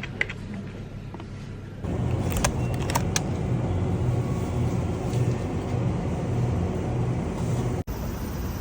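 Steady low rumble of a moving vehicle, starting abruptly about two seconds in after a quieter stretch, with a few sharp clicks soon after it begins.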